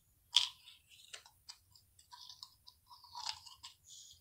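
Small orange plastic container being handled on a tabletop: a sharp click about half a second in, then scattered light clicks and a short rustle.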